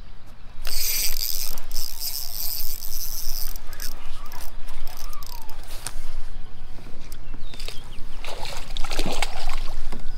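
Spinning reel being cranked with a fine ticking as a hooked bass is reeled in, then splashing near the end as the fish thrashes at the landing net.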